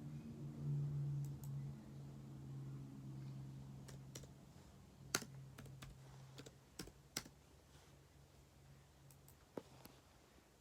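Irregular keyboard key clicks from typing, scattered and unhurried, over a low steady hum that fades away during the first half.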